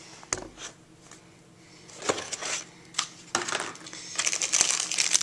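Light clicks and knocks of items being handled on a table. Near the end comes a rising crinkle of a plastic bag being picked up.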